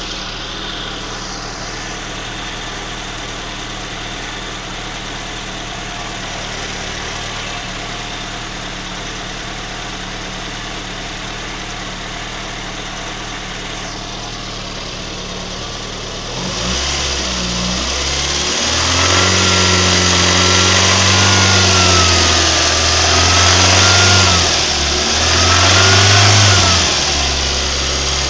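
VAZ-2109 (Lada Samara) four-cylinder engine idling steadily, then revved up about two-thirds of the way in and held at raised revs twice before easing back. The owner hears an unexplained ringing knock in the engine at around 2,500 rpm.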